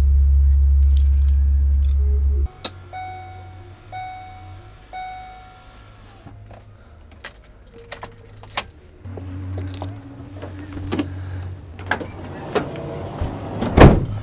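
A loud low rumble that stops abruptly, then a van's warning chime beeping three times about a second apart, clicks and knocks of someone moving about in the cab over a low hum, and a van door shutting with a loud bang near the end.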